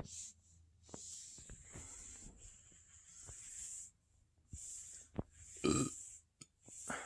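A person breathing close to the microphone, with a few soft clicks and one short burp a little before six seconds in.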